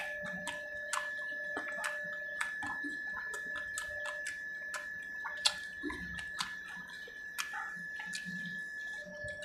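Close-up eating sounds of a man eating fish curry with his hands: irregular wet smacking and chewing clicks, two or three a second, with a louder smack about five and a half seconds in. A faint steady high whine runs underneath.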